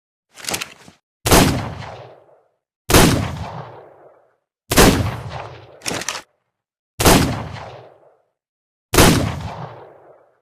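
Revolver gunshot sound effect: five shots about two seconds apart, each trailing off over about a second. A shorter, quieter mechanical click comes just before the first shot and another between the third and fourth.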